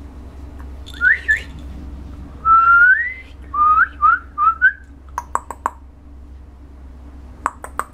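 A person whistling short rising whistles, with one longer rising whistle about two and a half seconds in. This is followed by a few quick clicks about five seconds in and again near the end.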